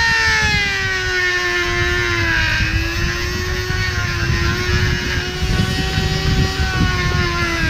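Handheld electric rotary tool running at high speed, its bit working against the steel of a gate frame. The motor's steady whine sinks slightly in pitch over the first couple of seconds and then holds, over a rough grinding noise.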